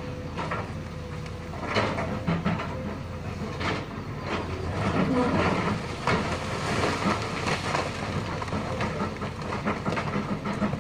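Lonking hydraulic excavator's diesel engine running under load as its bucket digs and shifts loose rock, with several sharp knocks of rock and steel.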